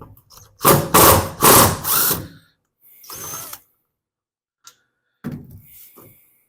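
Power drill running in a few short bursts, then a quieter short run with a high whine and a brief final burst, while taking apart a small engine's recoil starter.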